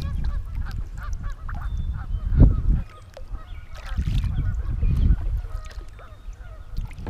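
Kayak paddle strokes dipping and splashing in the water, with heavy low thuds about two and a half seconds in and again around four to five seconds. Geese honk repeatedly in the background, most often in the first couple of seconds.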